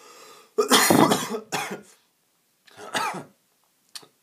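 A person coughing: a loud, rough burst about half a second in, then a shorter voiced throat sound near three seconds.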